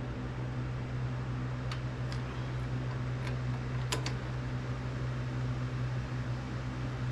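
Steady low hum of a running motor, with a few light, sharp clicks from a torque wrench and socket working on the engine's cylinder-head bolts; the loudest click comes about four seconds in.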